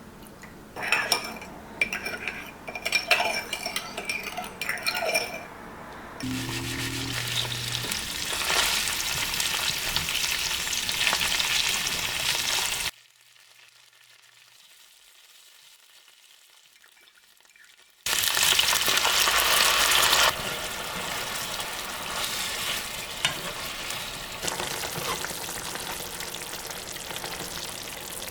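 Sliced pork frying and sizzling in a pan. It opens with a few seconds of clinks from utensils against cookware. The sizzle cuts out for about five seconds in the middle, then comes back loud.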